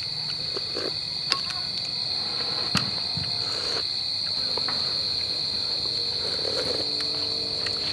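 Night insects trilling steadily at one high pitch, with two sharp clinks of spoons against ceramic bowls, about a second and nearly three seconds in.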